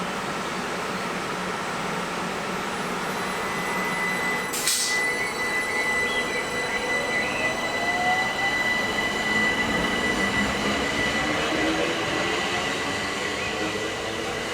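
Class 377 Electrostar electric multiple unit moving at the station, its traction equipment whining in steady high tones, with a rising whine midway as the loudness slowly builds. A single sharp click sounds about five seconds in.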